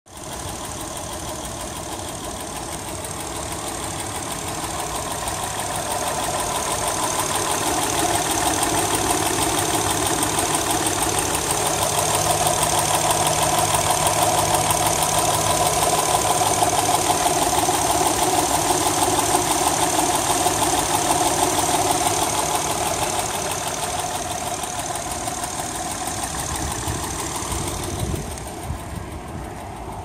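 2008 Honda Accord 3.5-litre V6 idling with a rapid, really loud ticking from the top of the engine, the cause unknown to the owner; some suggest it needs a valve adjustment. It grows louder a few seconds in and eases off near the end.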